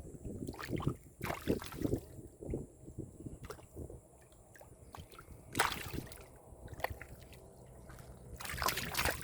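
Hands sloshing and splashing through shallow, muddy field water, in irregular splashes, the loudest about a second and a half in, midway through and near the end.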